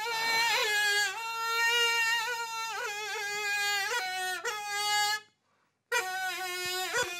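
Qo'shnay, the Uzbek double-pipe reed instrument, played solo: a melody of long held notes joined by slides and quick dips in pitch, with a short break about five seconds in before the next phrase.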